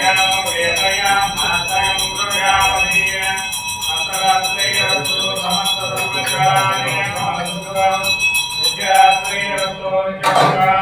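Male voice chanting Sanskrit mantras over a hand bell rung rapidly and without pause, as in an aarti lamp offering. A sharp knock comes near the end.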